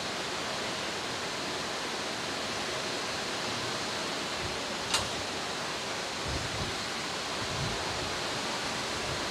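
Steady rushing hiss of background noise, with one sharp click about five seconds in and a few soft low thumps after it.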